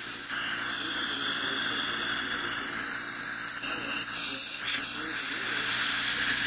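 Dental saliva ejector sucking air and fluid in the patient's mouth: a loud, steady high hiss.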